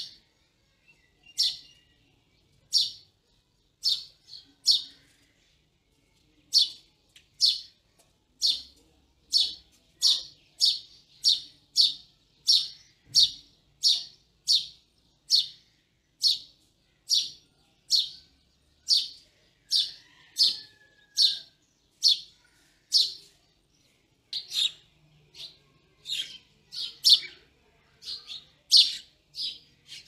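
House sparrow chirping over and over, short sharp chirps, at first with gaps, then about one and a half a second, and a little faster and more uneven near the end.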